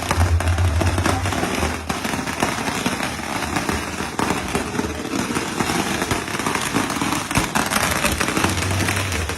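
Firecrackers going off in a rapid, continuous crackle of sharp bangs without a pause.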